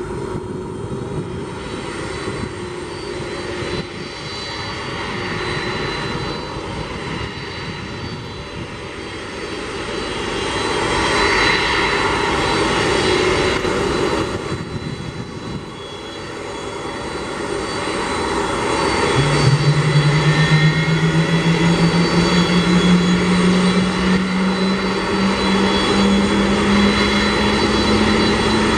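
Boeing 747-400 freighter's jet engines running as it taxis by: a steady rushing roar that swells, eases, then grows louder again. From about two-thirds in, a low hum sets in and slowly rises in pitch.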